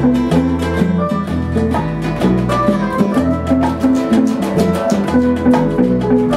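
Instrumental Cuban jam: electric bass, electric guitar and acoustic guitar playing a steady groove over bongos.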